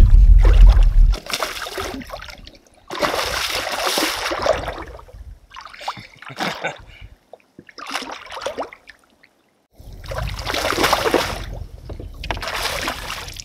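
A hooked bowfin thrashing at the surface beside a kayak: about five separate bursts of splashing with pauses between them. A heavy low rumble comes at the start.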